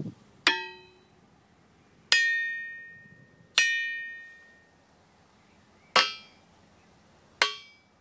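Five hammer strikes on the steel rims of a railway wheelset's monoblock wheels. The first three ring out clearly for a second or two. The last two die away quickly and sound duller, which is the sign of the cracked wheel, against the long clear ring of the sound wheel.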